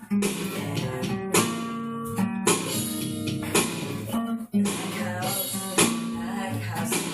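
Guitar playing: strummed chords struck about once a second, with notes ringing on between the strokes over a low bass line.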